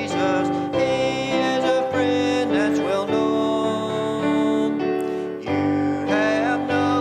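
Church music: piano and a singing voice, with a brief pause about five and a half seconds in.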